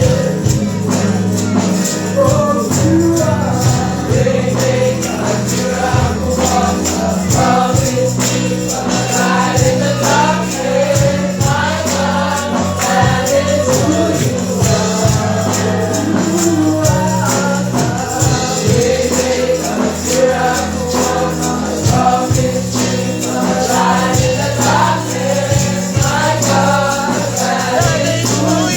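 Gospel worship music: a choir singing with a band, a tambourine shaking along to the beat.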